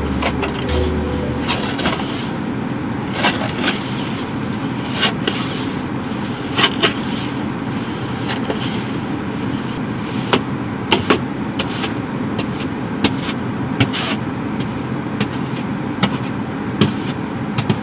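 Snow being brushed and scraped off a car windshield, heard from inside the car: irregular sharp scrapes and knocks on the glass, about one every second or two, over the steady hum of the running car.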